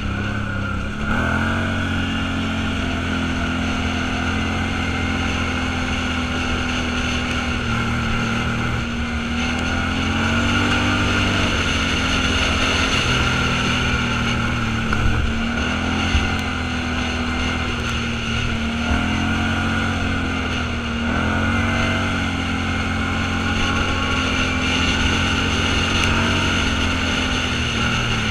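Off-road vehicle engine running under way, its pitch rising and falling a few times with the throttle over a steady rush of driving noise. There are two short knocks about halfway through.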